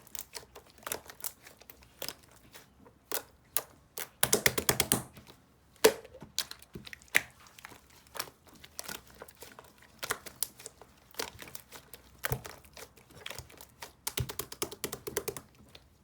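Slime being squished and worked by hand, giving a string of sticky clicks and small air-bubble pops, with quick runs of clicks about four seconds in and again near the end.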